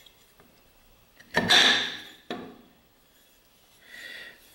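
Aluminium square tubing knocked against and fitted over a machined metal bearing block: a loud clank with a short ring about a second in, a second knock a second later, then a brief scrape of the tube sliding on the block near the end.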